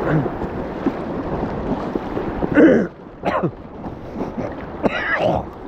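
River water rushing and splashing around inflatable kayaks on a rough stretch of the Mersey, with two short, loud vocal outbursts about two and a half and five seconds in.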